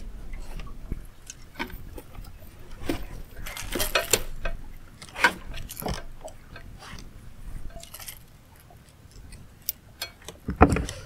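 Fishing tackle being handled: scattered light metallic clinks and knocks, with a cluster of them midway and the loudest knocks near the end.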